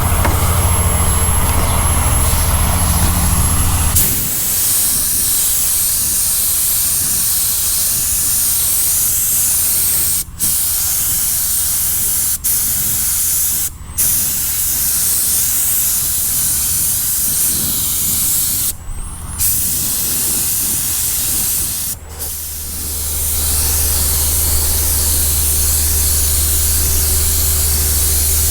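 Paint spray gun spraying primer: a steady hiss of compressed air and atomised primer, broken by a few brief pauses where the trigger is let off. A low steady hum runs under it at the start and again near the end.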